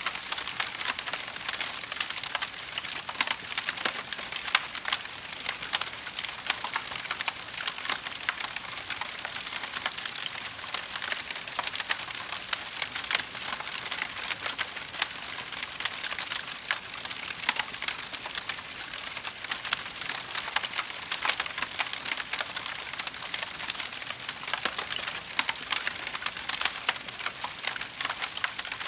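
Fire crackling steadily: a dense, unbroken stream of small sharp crackles and pops.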